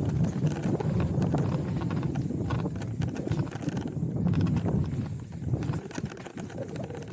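Hardtail mountain bike descending a rocky dirt trail: tyres rolling over dirt and stones with a continuous rattle of quick clicks and knocks from the bike.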